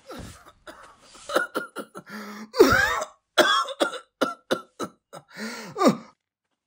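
A person in a coughing fit: a run of short, harsh coughs mixed with throat clearing. The loudest cough comes a little past halfway, and the coughing stops near the end.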